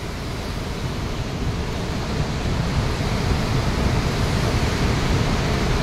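Fast, muddy mountain stream rushing over a rocky road: a steady noise of flowing water that grows gradually louder.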